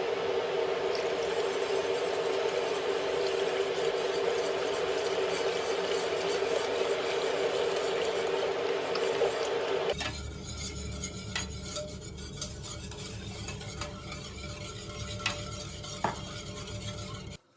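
A spoon stirring a pot on the stove over a steady hum; about ten seconds in the sound cuts to a quieter low hum with a few light clicks.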